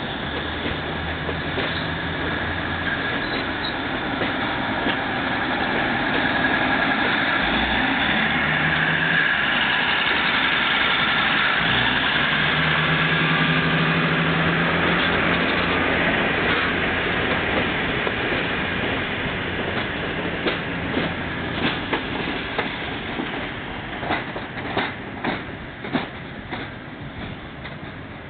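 A 2000 class 'Jumbo' diesel railcar set running past at low speed, its engines and wheels on the rails growing louder through the middle and then fading as it moves away. Near the end the wheels give sharp, irregular clicks over rail joints and points.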